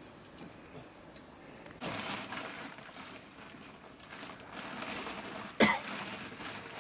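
Hands handling cooking things by a hearth: a dry rustling from about two seconds in, and one sharp knock a little after five seconds.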